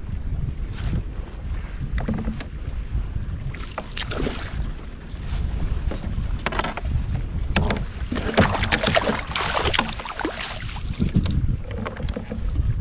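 Wind rumbling on the microphone aboard a fishing kayak, with scattered sharp clicks and knocks of rods, reel and landing net being handled. A louder stretch of clatter and rustling comes about eight to ten seconds in.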